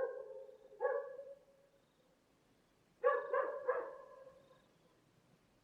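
Dog barking: one bark about a second in, then a quick run of three barks about three seconds in.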